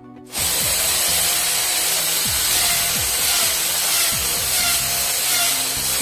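Electric drill boring into a ceramic-tiled wall, running loud and steady from about half a second in.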